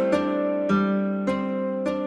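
Instrumental background music: a plucked-string melody, with a new note every half second or so.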